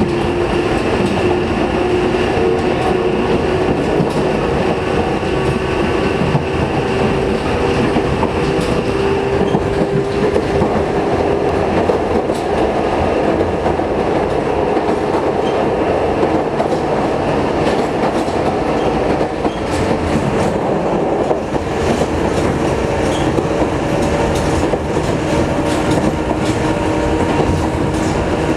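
Sanki Railway Sangi Line electric train running at speed, heard from inside the car: steady rumble of wheels on rail with a constant hum of several steady tones.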